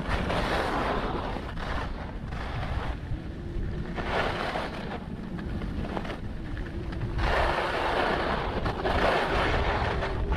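Wind buffeting the microphone with a low rumble while skiing, and the hiss and scrape of skis on snow that swells and fades with each turn.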